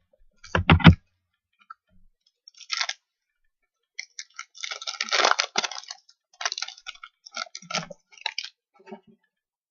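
A trading-card pack's foil wrapper being torn open and crinkled, a run of crackling rustles in bursts, busiest about four to six seconds in and dying away near the end.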